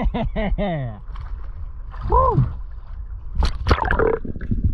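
A diver's wordless excited whoops, a quick run of falling calls and then one more, with water gurgling and splashing at the surface as he goes under.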